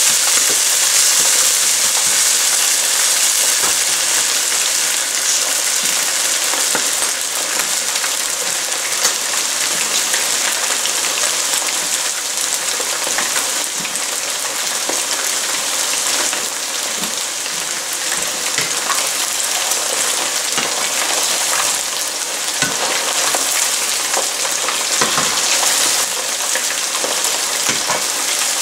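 Marinated chicken pieces frying in hot oil in a pan: a steady sizzle with scattered crackles and a few light knocks.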